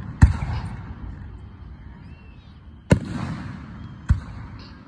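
Aerial firework shells bursting overhead: three sharp bangs, one just after the start, one near three seconds in and a quicker one about a second later. Each bang trails off in a drawn-out rumbling echo.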